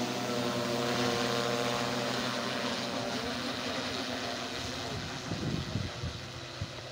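Agricultural spraying multirotor drone's propellers humming steadily overhead, the hum fading gradually as the drone flies off.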